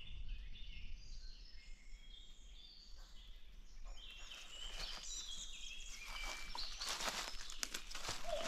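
Several birds singing in woodland, short whistled phrases overlapping throughout. In the second half, footsteps and rustling through undergrowth grow louder.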